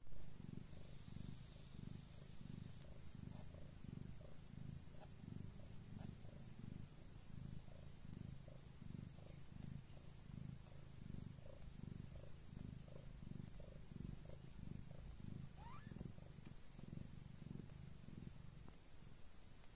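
Mother cat purring steadily as she lies with her newborn kittens, a low purr pulsing about twice a second.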